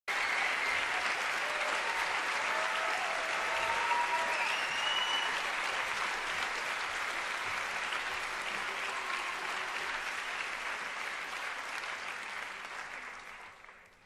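Theatre audience applauding, with a few short cheers over the clapping; the applause dies away near the end.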